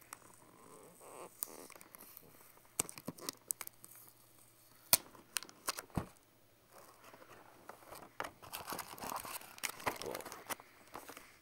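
Hands opening a cardboard retail phone box: a run of sharp clicks and taps as the box and lid are handled, the loudest about five seconds in, then rustling and scraping of the inner cardboard packaging and printed booklets.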